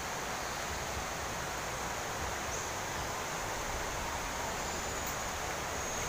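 Steady rushing hiss of outdoor ambience, even throughout with no distinct events.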